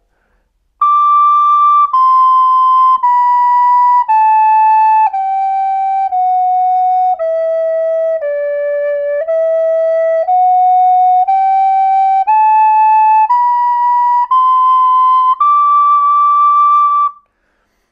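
Plastic soprano recorder playing a slow D mixolydian scale, one note per beat of about a second each: down from high D to low D and back up to high D, fifteen cleanly tongued notes with short breaks between them.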